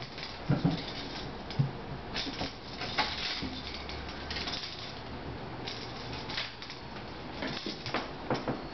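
Kitten jumping at a louvered wooden closet door: irregular clicks and rattles of paws and claws on the slats, with a few soft thumps as it lands on the wooden floor.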